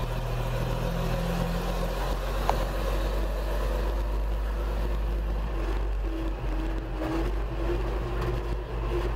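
Old fire engine's Waukesha engine running steadily, heard from inside the cab as a low, even drone. A faint steady whine joins it about halfway through.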